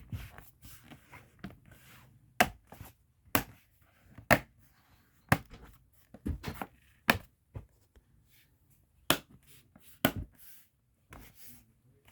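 Plastic bottom cover of a Lenovo Flex 3 laptop snapping back onto the chassis as it is pressed down, its retaining clips catching one by one: about ten sharp plastic snaps, irregularly spaced.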